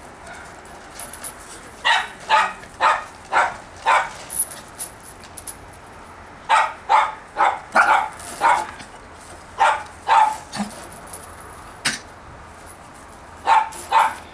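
Small pinscher dogs barking in quick runs of sharp yaps, excited over food held out of reach. A single sharp click about twelve seconds in.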